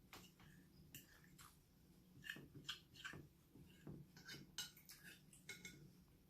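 Faint, irregular clinks and clicks of cutlery against a dish during eating, most of them between about two and six seconds in.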